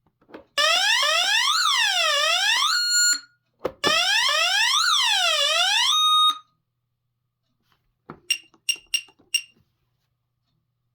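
Scantronic 9452 intruder alarm sounding through its speaker: two bursts of a loud up-and-down sweeping siren tone, each ending on a brief steady note. Four short beeps follow near the end. This is erratic behaviour that the owner puts down to a failing microprocessor or corrupt NVM.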